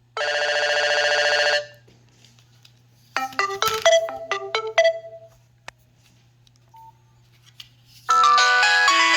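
Nokia 5610 preloaded ringtones playing through the phone's loudspeaker, one after another. First comes a short buzzy tone lasting over a second, then a brief melody of quick separate notes, and near the end a new, fuller polyphonic tune begins.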